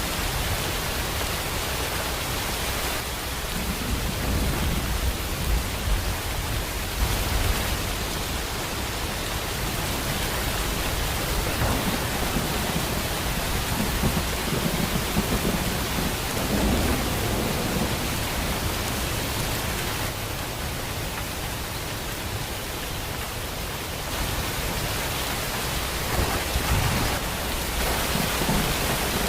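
Steady heavy rain, with low thunder rumbles swelling and fading under it.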